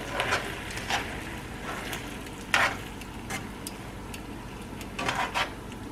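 Skillet of Alfredo sauce and spinach sizzling gently on the stove, with a few short scrapes and taps of a utensil against the pan, the clearest about two and a half seconds in and near the end.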